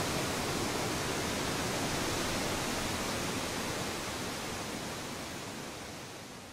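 Steady rush of river water, fading out over the last two seconds or so.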